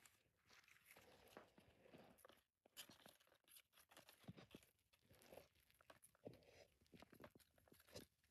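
Faint rustling and crinkling of paper streamers on a wooden stick, a homemade Shinto purification wand being waved about, with scattered small clicks and taps.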